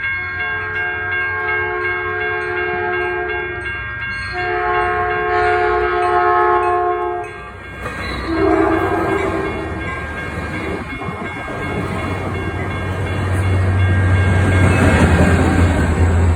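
Caltrain locomotive horn sounding two long blasts and a short one for a level crossing, then the train running past with a noisy rush and a low rumble that grows louder toward the end.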